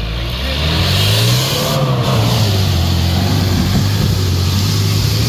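Off-road 4x4's engine revving hard under load as it climbs through deep mud. The revs rise over the first second, then stay high and steady.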